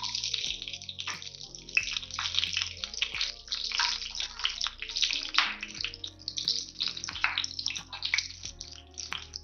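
Green chillies and whole spices frying in hot sesame oil in a kadai, the oil sizzling with a dense, irregular crackle.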